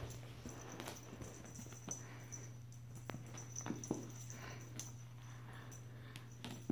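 Faint scuffling of a kitten pouncing on and wrestling a feathered wand toy on carpet: scattered soft taps and rustles over a steady low hum.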